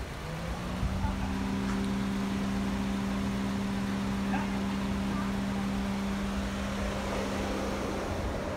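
Steady mechanical hum from a Subaru Outback at a standstill. The hum rises in pitch in the first second, then holds at one steady pitch over a low rumble.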